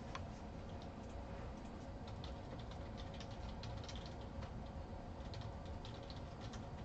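Faint, irregular light clicks, several a second, over a low steady hum.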